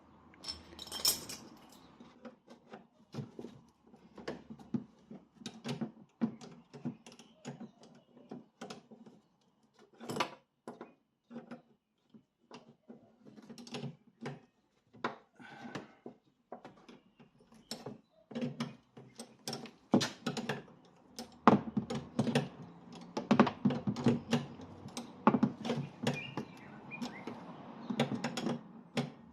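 Hand tools working on the rear shock absorber's mounting nut and washer: a long run of irregular metal clicks and knocks, busier and louder in the second half.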